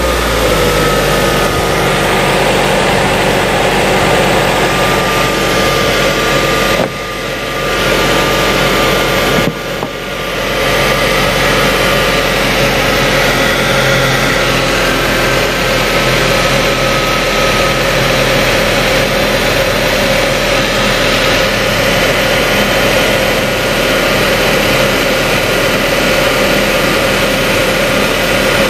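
Ford Mondeo 2.0 Duratec four-cylinder engine running at idle, steady, with two brief dips in level about seven and ten seconds in.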